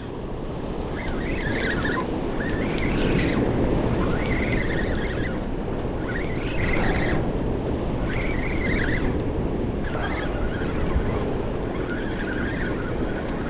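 Steady rush of fast, heavy water below a dam with all its spill gates open, with wind buffeting the microphone. Short wavering higher sounds recur every second or two over the rush.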